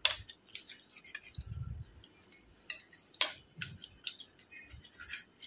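A metal spoon clinking and scraping against a stainless steel bowl while mashing boiled tomato, onion and green chilli: a few sharp, irregular clinks, with a soft low thump about a second and a half in.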